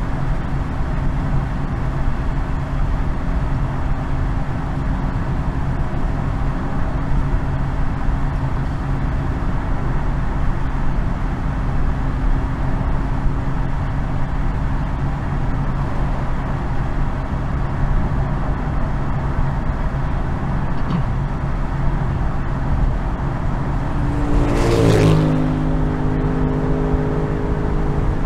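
BMW M240i's 3.0-litre B58 inline-six and road noise while cruising at a steady speed, the engine note holding one pitch. Near the end a brief loud whoosh, with tones that step down in pitch, as another vehicle rushes past.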